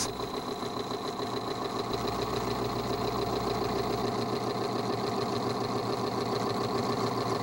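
Extreme-pressure lubricant test machine running. Its motor turns a steel race against a loaded test bearing that has no oil bath, only a residual film of metal treatment. The machine gives a steady mechanical drone.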